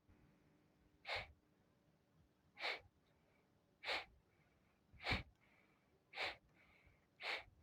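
Kapalbhati pranayama: six short, forceful exhalations through the nose, about one a second.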